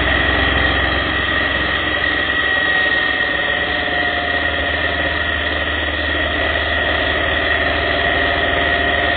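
Motorcycle engine running steadily while cruising, mixed with wind and road noise, with a constant high tone over it.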